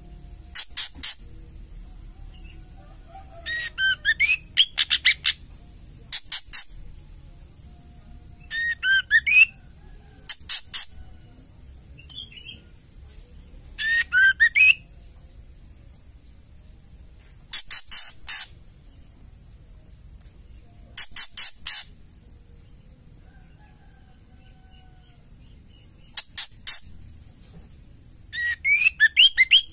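White-rumped shama giving the female's rattling 'ketrek' chatter: about eight short bursts of quick, harsh high notes, one every few seconds.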